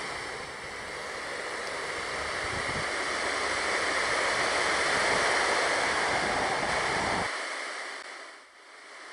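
A steady rushing noise that swells toward the middle, loses its low end abruptly about seven seconds in, and fades briefly near the end.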